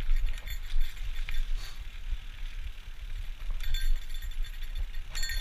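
A Trek bicycle being ridden, its parts rattling and clinking over bumps in the trail, over a steady low rumble of wind on the microphone. A couple of brief ringing clinks stand out about two-thirds through and again near the end.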